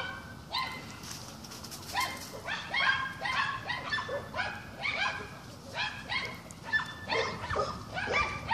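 Dogs barking over and over: short, high barks coming two or three a second after a brief lull near the start.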